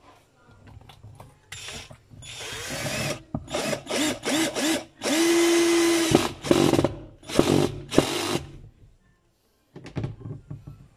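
Total cordless drill-driver driving the centre screw that holds a washing machine's pulsator onto its shaft: a string of short runs with the motor spinning up each time, one longer steady run in the middle, then a few more short bursts.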